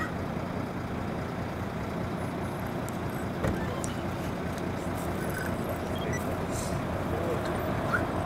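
Heavy truck's diesel engine running as the truck drives slowly toward the listener, a steady low rumble that grows slightly louder as it nears. A brief knock about three and a half seconds in.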